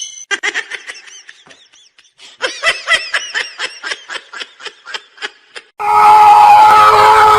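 A person giggling in a quick run of short, high-pitched laughs. Near the end a much louder, steady sound with a held pitch cuts in suddenly.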